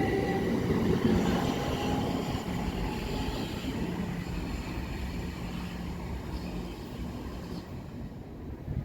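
Electric multiple-unit train moving away, its steady motor whine and rail rumble fading over several seconds.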